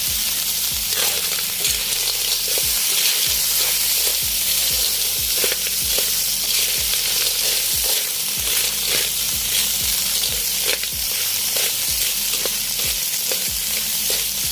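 Food sizzling as it fries in a hot pan, a steady loud hiss, with regular stirring strokes through it.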